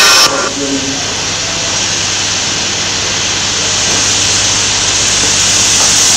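A steady hiss over a low hum, growing slightly louder toward the end.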